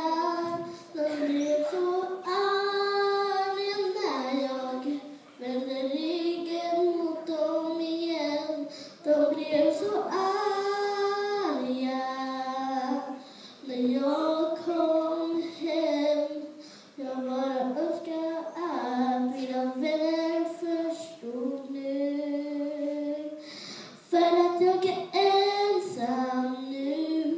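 A young girl singing solo into a microphone, in sung phrases of held notes with short pauses between them.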